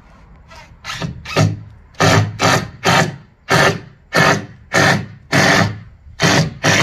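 Repeated hammer blows on the coop's plywood and lumber frame, about a dozen strikes at roughly two a second, light at first and heavy from about two seconds in.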